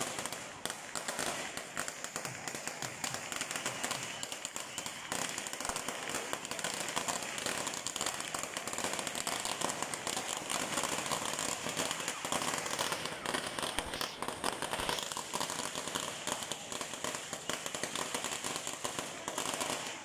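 Firecrackers going off in a fast, unbroken rattle of pops, with crowd voices beneath.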